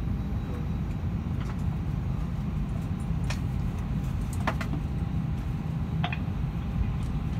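Airbus A320 cabin noise while taxiing: a steady low rumble of the engines at idle and the rolling aircraft, with a few short sharp clicks.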